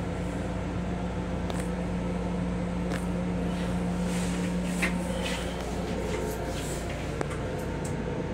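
Steady running hum of an M7 electric railcar heard inside its small restroom, with a steady low tone that fades out about six seconds in, and a few light clicks and rattles.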